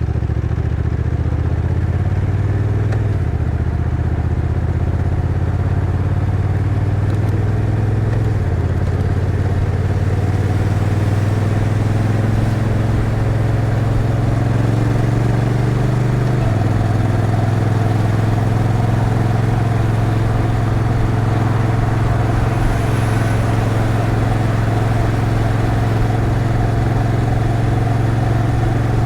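Honda NT1100's 1,084cc parallel-twin engine running steadily on the move. Its pitch steps abruptly about three seconds in, around eight seconds in and again just past the middle, as the dual-clutch transmission changes gear.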